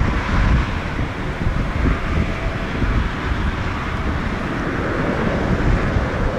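Wind buffeting the microphone with a low, uneven rumble, over the steady jet noise of a KLM Boeing 787-9's GEnx-1B turbofans on departure.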